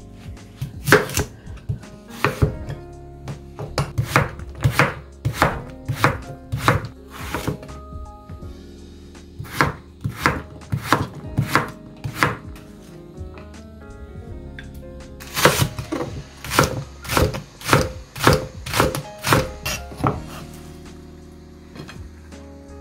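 Kitchen knife chopping on a cutting board, cutting Korean radish into flat squares: single sharp chops about two a second in three runs, with soft background music under them.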